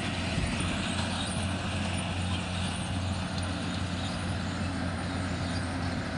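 Rice harvester running steadily, its engine hum under the even noise of the working machinery.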